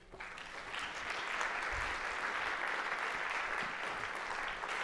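Audience applauding at the end of a talk, starting at once and fading slowly near the end.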